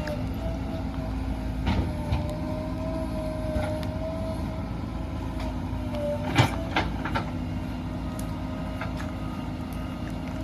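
Heavy diesel machinery running steadily with a drone and a wavering whine, broken by several sharp metal clanks. The loudest clank comes about six seconds in, followed by two more in quick succession.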